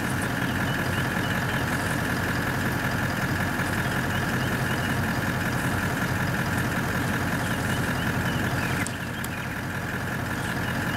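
Steady low engine drone, like a vehicle idling, with an even high-pitched buzz over it; the sound drops in level about nine seconds in.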